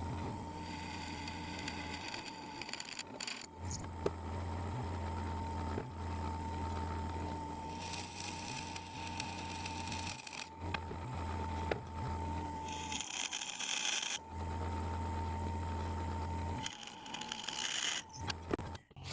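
Electric drill running and cutting holes through a steel knife blank's handle tang, with a steady motor hum and whine that stops briefly a few times between stretches of drilling.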